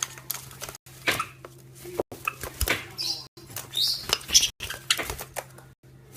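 Pet parrot calls and squawks mixed with sharp clicks and clatter, broken by abrupt cuts about every second or so.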